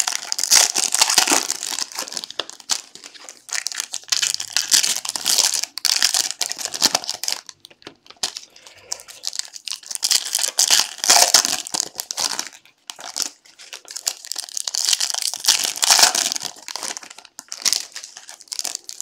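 Foil wrappers of Bowman's Best baseball card packs crinkling as the packs are torn open and handled, in irregular bursts with short pauses.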